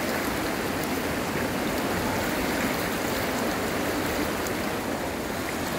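Steady rush of water.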